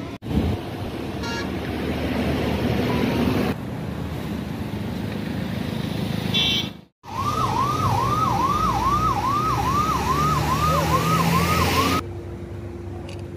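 Vehicle engine and road noise, then from about seven seconds in an emergency-vehicle siren wailing in quick repeating up-and-down sweeps, about two or three a second. The siren is the loudest sound and cuts off suddenly after about five seconds.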